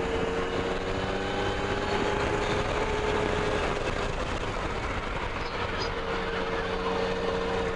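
Yamaha Tracer motorcycle engine running at a steady cruise through bends, its pitch shifting only slightly, heard from the rider's seat with wind and road noise rushing over the microphone.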